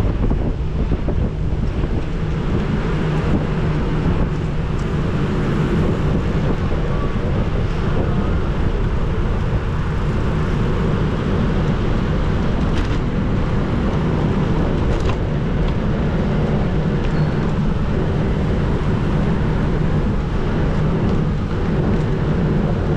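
Steady wind rushing over an action camera's microphone while riding a bicycle along an asphalt road, a dense low rumble that runs on without letting up.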